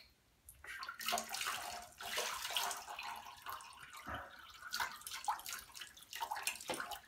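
Water poured from a plastic container over a puppy's back, splashing and running down into the shallow bath water, starting about a second in.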